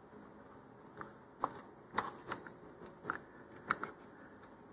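Faint handling clicks and light scrapes, about six in all, as a plastic fin is pressed into its glued slot on a model rocket fin can and slid forward.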